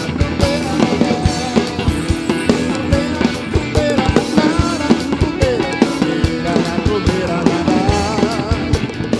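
Band playing a rock-style baião: a drum kit beat with bass and percussion, and a lead line that bends and wavers in pitch over it.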